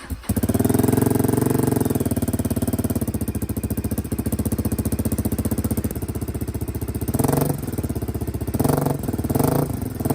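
Suzuki DR250 single-cylinder four-stroke motorcycle engine idling with an even exhaust beat, then the throttle blipped in short revs three or four times near the end.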